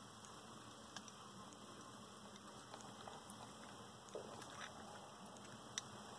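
Faint, scattered clicks and scratches of land hermit crabs' legs and shells knocking against a seashell feeding dish as they clamber over it to eat, over a quiet background hiss. The sharpest click comes about a second before the end.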